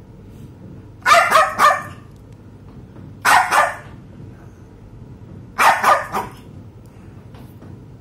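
Small white poodle barking in three quick bursts of two or three sharp barks each, about two seconds apart.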